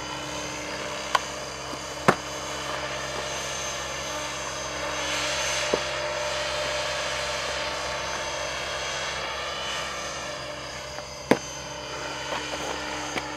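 Radio-controlled model helicopter flying overhead, its rotors and motor giving a steady drone, with a few sharp clicks, the loudest near the end.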